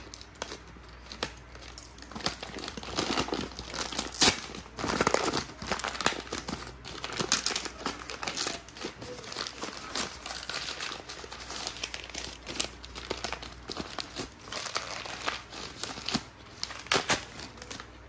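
Stiff paper wrapping and strongly stuck packing tape being worked off a parcel by hand: irregular crinkling and tearing with sharp crackles, continuing without a break.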